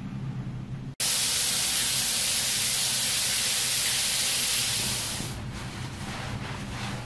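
Water pouring from an overhead rainfall shower head, a loud, steady hiss of spray that starts abruptly about a second in. After about five seconds it gives way to softer, rustling towel rubbing. A low, steady hum comes before the spray.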